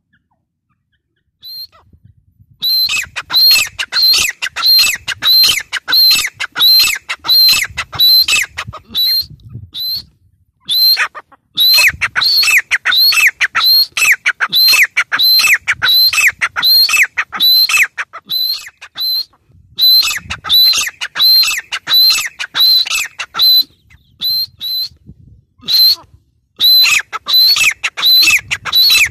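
Gray francolin calling: a long run of sharp, shrill notes repeated about two to three times a second, starting about two seconds in and broken by a few short pauses.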